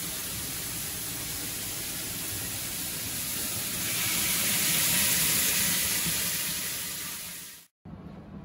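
Diced veal searing in hot olive oil in a stockpot: a steady sizzle that grows louder about halfway through as more pieces go in, then cuts off suddenly near the end.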